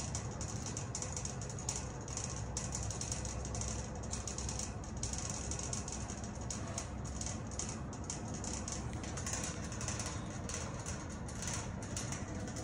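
Old fuel draining from a truck's fuel tank through a hose into a plastic bucket: a steady low hum with fine, rapid crackling throughout.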